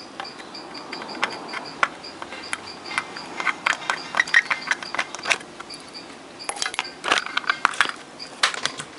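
Irregular clicks, taps and short scrapes of a thin metal tool on the solder joints of an amplifier's circuit board.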